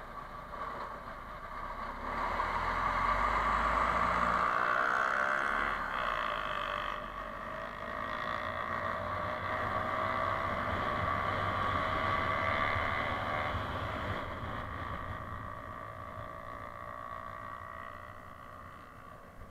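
Motorcycle engine and road noise while riding in traffic. The engine's pitch rises as it speeds up, a few seconds in and again around the middle. A deep engine rumble is heard in the first few seconds, and the sound eases off near the end.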